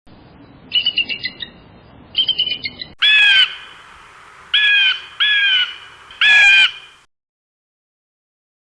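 A bird calling: two quick chattering bursts, then four loud, harsh squawks about half a second each.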